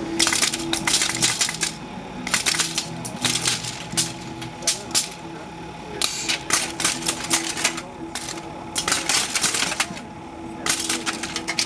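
Scrap-metal robot band driven by compressed air, its pneumatic strikers clattering on metal junk in repeated bursts of sharp clicks in a loose rhythm, over a steady tone, with low pitched notes in the first half.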